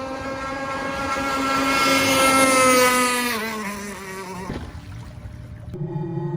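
Gas-powered RC boat's two-stroke engine running at speed as the boat passes: it grows louder, then drops in pitch about three seconds in as it goes by and fades. Music starts abruptly near the end.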